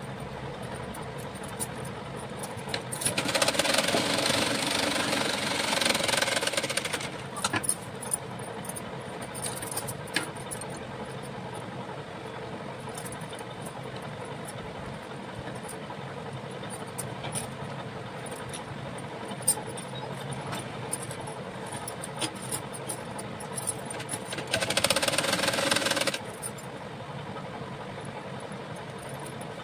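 Domestic sewing machine running in two bursts of stitching, one about three to seven seconds in and a shorter one near the end. Between them the machine is quieter, with scattered small clicks and fabric rustling as the cloth is repositioned.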